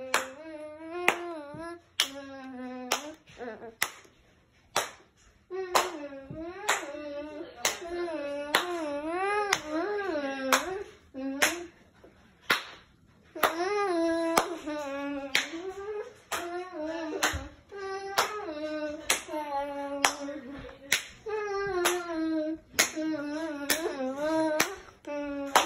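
A voice singing in wavering, drawn-out phrases over steady hand claps about twice a second; the claps carry on through the pauses between phrases.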